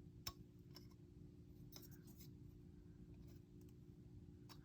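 Near silence over a low steady hum, with a few faint clicks of small plastic model-kit parts being handled and cut from the runner, the sharpest about a quarter second in.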